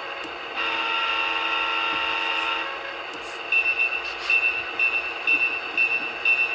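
A diesel locomotive horn sounded by a DCC sound decoder through the small speakers inside an Atlas HO-scale SD35 model: one blast of about two seconds. From about halfway through, the decoder's locomotive bell rings, about two dings a second.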